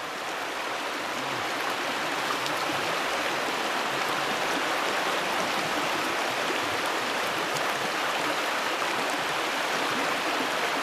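Flowing stream water making a steady rush, growing louder over the first couple of seconds and then holding even.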